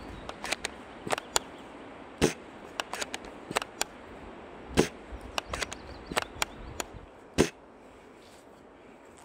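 Airsoft guns firing irregular single shots: three loud, sharp cracks about two, five and seven seconds in, with many fainter clicks between them.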